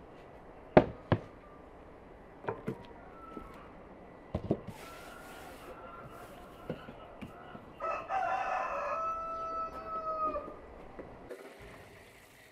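A rooster crows once, a long call of about two and a half seconds starting about eight seconds in. Before it come a few sharp knocks and clatters, the loudest within the first second.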